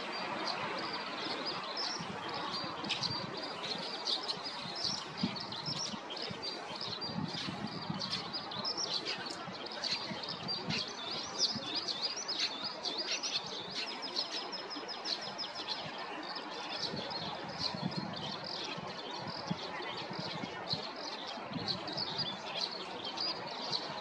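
Eurasian skylark singing in its hovering song flight: a long, unbroken stream of rapid high chirps and trills.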